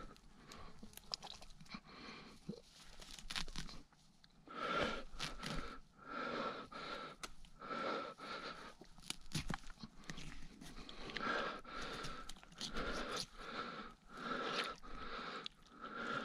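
Irregular rustling and crunching of shrub branches and dry undergrowth as a dead young wild boar is handled under a bush, mixed with short wheezy breaths.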